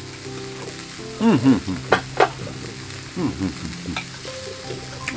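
Rice-flour pancakes sizzling as they fry, a steady frying hiss, with a couple of short voice-like sounds and a few light clicks over it.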